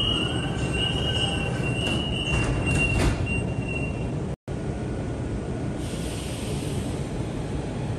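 Metro train door-closing warning: a repeated high beep sounds while the sliding doors shut, about three seconds in. The train's steady low rumble runs throughout, and a short hiss comes near the end.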